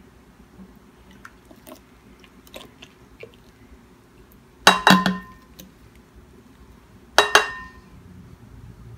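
Two sharp clinks, about two and a half seconds apart, as a plastic measuring cup knocks against a stoneware mixing bowl while milk is poured into it, each clink ringing briefly; faint small ticks and splashes of the pour come in between.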